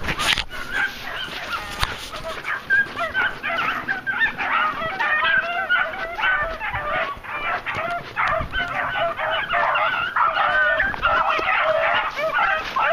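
A pack of beagles baying together, many overlapping voices building from about two seconds in, the hounds giving tongue as they run a rabbit. A sharp knock right at the start.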